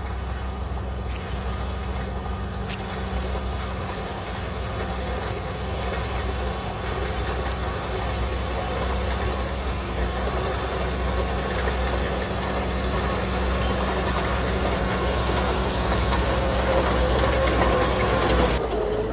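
Shantui DH17C3 Pro bulldozer's diesel engine running steadily under working load, growing gradually louder, with an abrupt change just before the end.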